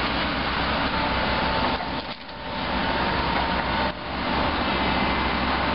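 Hydraulic excavator with a demolition grab tearing into the building's roof and walls: wood cracking and splintering over the steady low running of the machine's diesel engine, with brief lulls about two and four seconds in.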